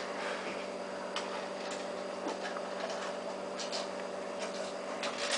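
Light scattered clicks and ticks over a steady low electrical hum.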